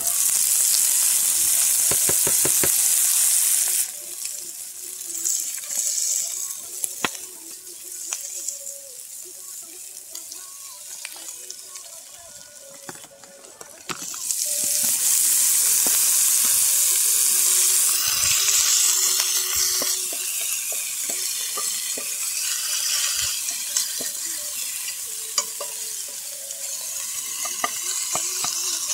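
Leftover turkey dinner sizzling in a cast iron Dutch oven over a wood fire. A loud hiss runs for the first few seconds and comes back about 14 seconds in, then settles to a quieter sizzle, with scattered clicks and crackles throughout.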